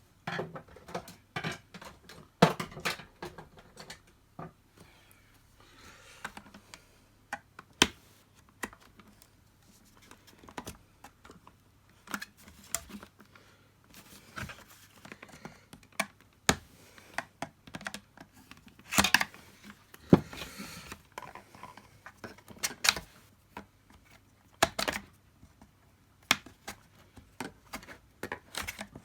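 Irregular clicks, taps and knocks of the plastic cyclone and mesh parts of a Dyson DC50 vacuum cleaner being handled and prised at during a strip-down, with a few louder knocks and a short scraping sound about two-thirds of the way in.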